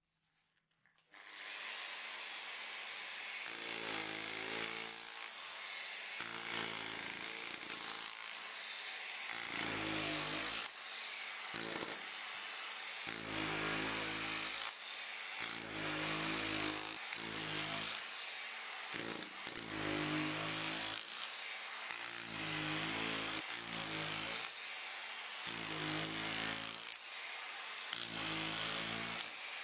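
Angle grinder driving a reciprocating chisel attachment: an off-centre cylinder on the spindle strikes the holder, hammering a gouge into wood. It starts about a second in, with a steady high motor whine and a rough chattering buzz each time the chisel bites the wood, about every one to two seconds.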